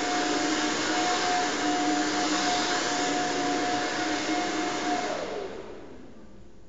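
Steady whir of an electric motor-driven blower, like a vacuum cleaner or hair dryer, switched off a little after five seconds in and winding down with a falling pitch.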